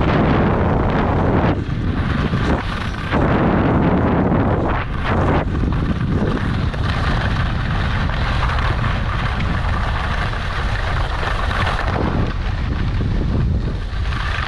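Wind buffeting a skier's point-of-view camera microphone while skiing, over the steady hiss and scrape of skis running on packed snow.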